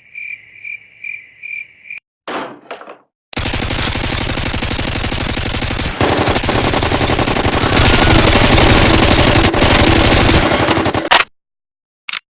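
Sound effects: a short run of high, even chirps, about four a second, like crickets, then a long burst of rapid automatic gunfire that lasts about eight seconds and cuts off suddenly.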